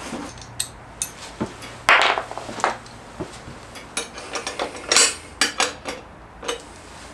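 Scattered clinks and clatter of hand assembly: loose bolts, washers and nylon lock nuts handled against a steel wheel-chock frame, and a plastic toolbox opened for a tool. A few louder scraping rustles come about two and five seconds in.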